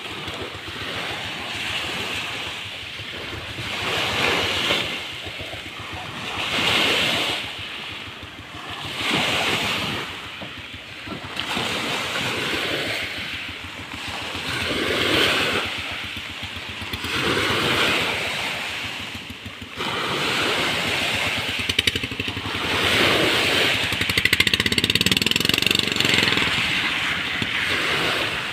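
Choppy lake waves washing in, rising and falling about every two seconds.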